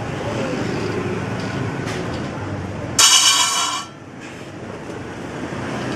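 Woodworking power machine running steadily, with a loud, high-pitched whine for just under a second about three seconds in as the blade cuts into wood. After that the noise drops and slowly builds back up.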